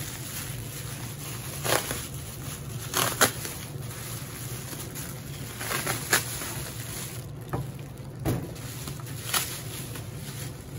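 Aluminium foil crinkling as a foil-wrapped packet is opened by hand: irregular crackles, the loudest about three seconds in, over a low steady hum.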